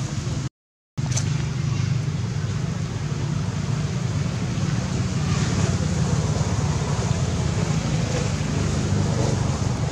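Steady low motor hum, with a brief drop to total silence about half a second in.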